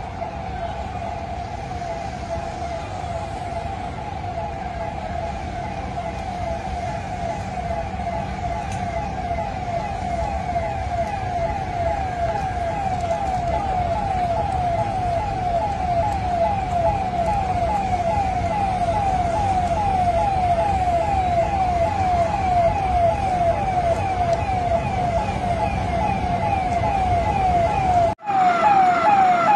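Emergency vehicle siren wailing in quick repeated sweeps, about two a second, over a low rumble. It cuts out briefly near the end and comes back louder.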